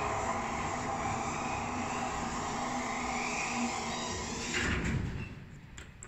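Pilawa passenger lift car travelling down, with a loud steady running hum. Near the end it comes to a stop with a low thump and the running noise dies away, followed by a couple of light clicks.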